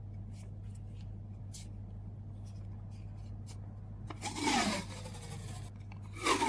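Packing materials being handled: light clicks, then two short rasping pulls, about four seconds in and near the end, over a steady low hum.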